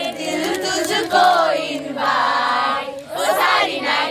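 A group of young people singing or chanting together in loud overlapping voices, with a long held note near the middle.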